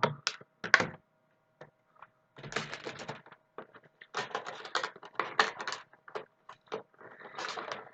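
Handling of plastic Heroclix figures and their packaging: sharp plastic clicks and clusters of crackly rustling.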